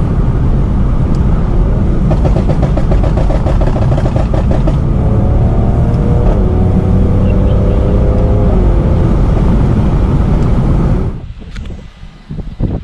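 Tuned Mercedes-AMG C43's twin-turbo V6 through a modified exhaust, accelerating hard. The engine note climbs and drops twice as it shifts up, then the sound cuts off abruptly about eleven seconds in.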